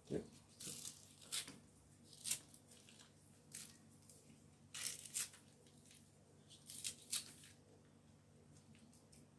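Kitchen scissors snipping through spring onion stalks: a series of crisp snips at irregular intervals, thinning out after about seven seconds.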